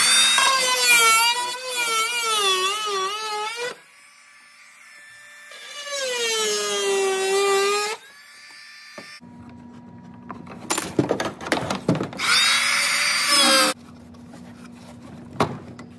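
Oscillating multi-tool cutting out rotted wood, run in three bursts, its whine wavering and dipping in pitch as the blade bites. A few sharp knocks come just before the third burst.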